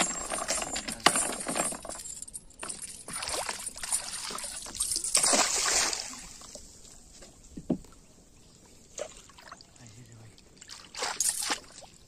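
Water splashing and sloshing at a chicken bait hanging on a chain in the water beside a wooden boat. The loudest splashing comes about five to six seconds in, then a few shorter, quieter splashes.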